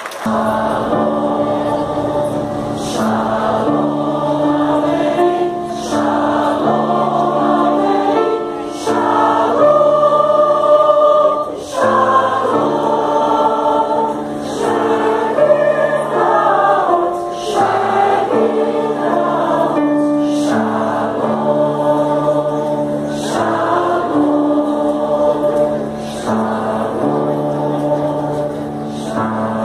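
Mixed choir of women and men singing a Christmas piece in several parts, over held low chords from an electronic keyboard.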